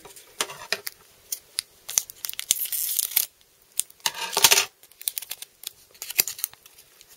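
Foil booster pack being handled and torn at its sealed top: scattered crinkles and clicks, with two longer tearing sounds about three and four and a half seconds in, the second the loudest.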